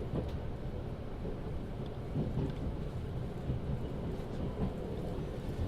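Train ambience: a steady low rumble with a few faint knocks.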